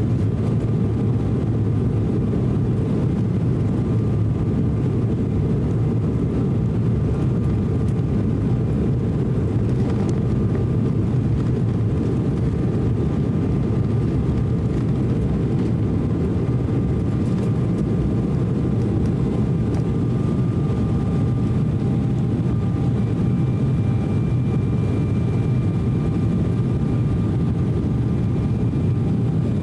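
Cabin noise of an Embraer E190 on its takeoff roll and climb-out, its GE CF34-10E turbofans at takeoff thrust: a steady, heavy rumble with faint steady whining tones above it.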